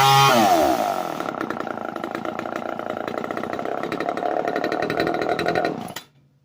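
1971 Homelite XL-1 two-stroke chainsaw engine coming down off high revs in the first half-second and settling into a fast, even idle. The sound cuts off suddenly near the end.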